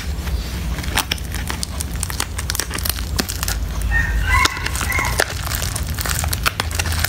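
Metallic bubble mailer crinkling and crackling as hands turn it over and pick at its sealed flap, a run of short crackles over a steady low hum. A brief pitched sound comes twice about four to five seconds in.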